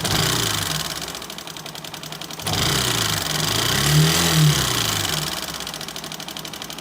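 Motorcycle engine running with a fast, loud 'tak tak tak' knock, blipped twice so that the engine note rises and falls. The mechanic first suspects tappet noise or piston slap, and later traces much of the knock to excess play in the rocker arm.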